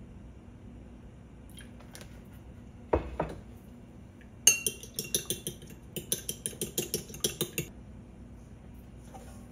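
A metal utensil beating egg yolk and milk in a small porcelain bowl, clinking rapidly against the bowl, about six strokes a second for about three seconds. A single knock on the bowl comes shortly before the beating starts.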